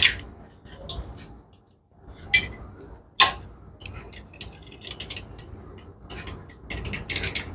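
Steel combination wrench clicking and clinking on a nut and the metal of a motorcycle transmission as the nut is turned and the wrench re-seated. There are sharp separate metallic ticks, with a quick run of clicks near the end.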